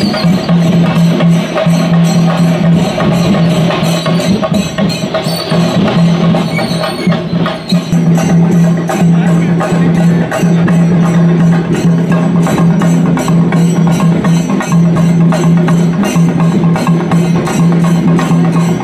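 Procession drumming with fast, dense strokes over a steady low droning tone, loud and continuous.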